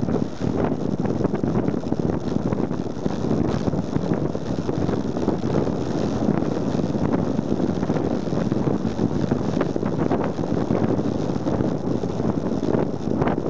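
Wind rushing over a bike-mounted camera's microphone during a fast bicycle descent, a steady noisy rumble mixed with tyre noise, with small scattered knocks from the bike going over the road surface.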